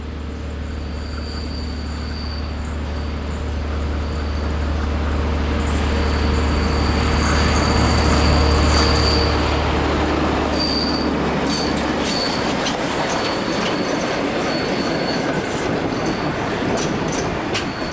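A train led by a V100 diesel-hydraulic locomotive passing close by on curved track. A steady low diesel drone builds to its loudest about eight seconds in and drops away about twelve seconds in as the locomotive goes by. High wheel squeal comes and goes throughout, with clicking wheels over the rail joints near the end.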